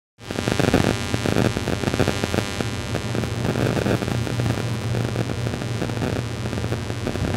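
A steady low hum under loud, even hiss and crackle, with no speech.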